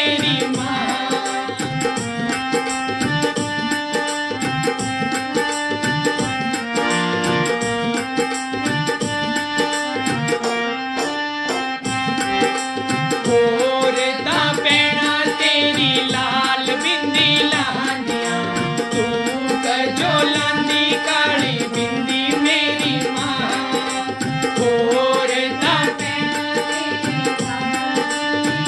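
Instrumental interlude of a Hindi devotional bhajan: a harmonium plays sustained reedy notes and chords over a steady hand-drum rhythm. A wavering melody line joins in about halfway through and again near the end.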